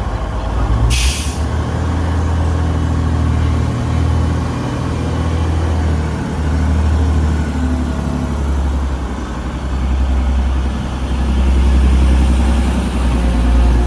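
A train running with a low, steady rumble that swells and eases slightly, and a short, sharp hiss of released air about a second in.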